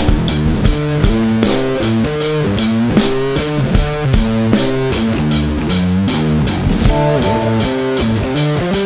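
1960s–70s-style rock band jamming: drum kit keeping a steady beat under guitar and bass riffs.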